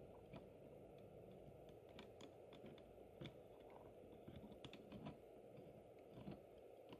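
Faint, irregular small clicks and ticks over a low steady hum, from the mechanism of a working OO-gauge model crane as its hook is lowered and raised.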